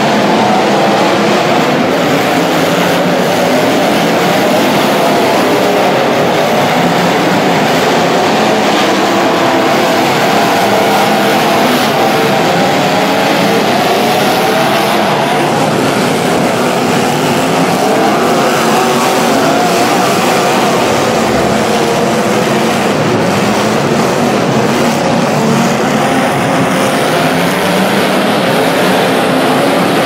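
Engines of several demolition derby cars running and revving together, a loud, continuous mix of overlapping engine notes that rise and fall.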